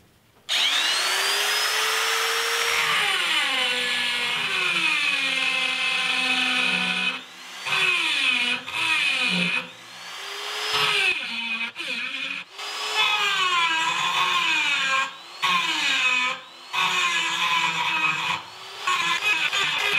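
Die grinder with a carbide rotary burr cutting 3/16-inch mild steel plate. It spins up with a rising whine about half a second in. Then its pitch sags each time the burr bites into the steel and climbs back as it eases off, with several short breaks in the sound.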